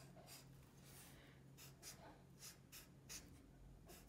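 Faint scratching of a Sharpie permanent marker on paper, a quick run of short strokes about every half second as small square windows are drawn.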